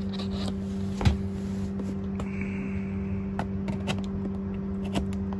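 A knife blade cutting along the taped seam of a cardboard laptop box: scattered clicks and knocks, the sharpest about a second in, and a short scratchy scrape about two seconds in, over a steady low hum.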